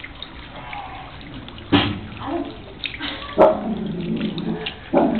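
A small garden fountain runs with a steady trickle of water into its basin. Three loud, sudden sounds break in, about a second and a half apart, each trailing off over half a second to a second.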